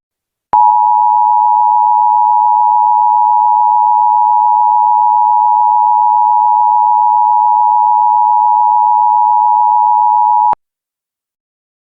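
Emergency Alert System attention signal: one steady, unwavering tone held for about ten seconds, starting about half a second in and cutting off abruptly. It warns listeners that an emergency alert message follows.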